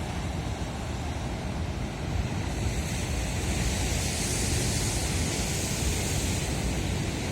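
Sea waves breaking and washing ashore, with wind rumbling on the microphone; the hiss of the surf swells from about three seconds in and eases near the end.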